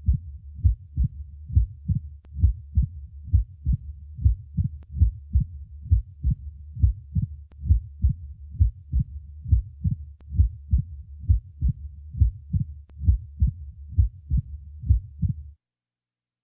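Recorded heart sounds heard through a stethoscope: a low-pitched, regular beat about once a second, which stops about a second before the end. It is one of the quiz findings: a split heart sound, an extra sound, a click or snap, or a murmur.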